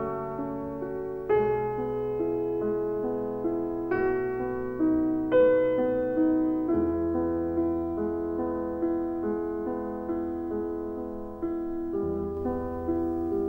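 Slow piano music: single notes struck about once a second, each fading away, over lower held notes.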